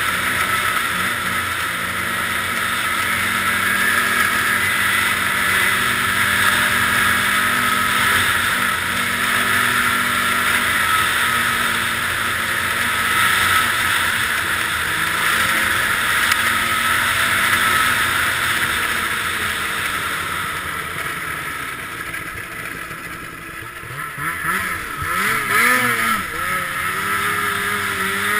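Ski-Doo snowmobile's two-stroke 800R engine running at a steady cruising speed. Near the end it eases off, then revs rise and fall several times in quick succession.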